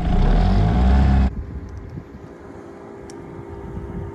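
Sailboat's outboard motor running, then cut off abruptly about a second in, leaving a much quieter steady background of wind and water.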